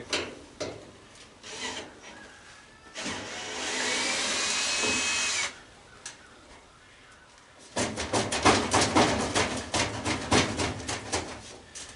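Cordless power drill/driver spinning steadily for about two and a half seconds while backing out a fastener on a gas stove, then a run of rapid, irregular knocks and clatters near the end as parts are worked loose.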